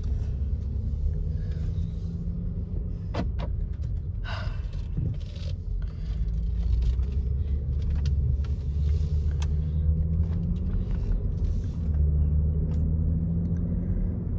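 Car driving, its low road and engine rumble heard from inside the cabin, with a few light clicks a few seconds in.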